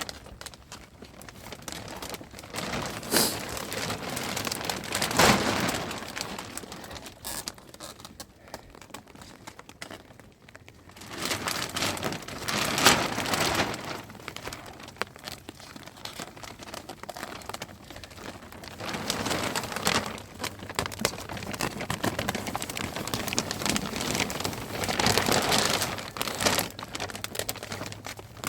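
Rain falling with a dense patter of drops, swelling louder several times and easing off between.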